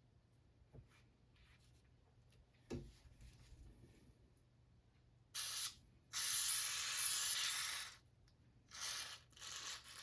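Aerosol lubricant can spraying in four hissing bursts: a short one, a long one of nearly two seconds, then two short ones. A single light knock comes a few seconds before the spraying.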